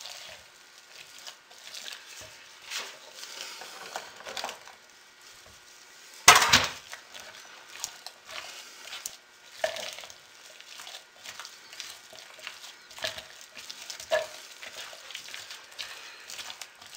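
A utensil stirring and scraping thick, stiffening hot-process soap in a crock pot insert: irregular squishing scrapes as cold soap embeds are folded in and cool the soap so it sets up. A single loud sharp knock about six seconds in.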